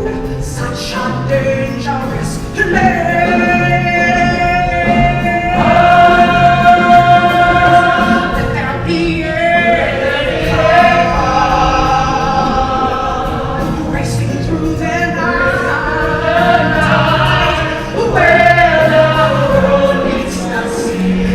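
Musical theatre ensemble singing in chorus over instrumental accompaniment, with long held notes that swell louder several times.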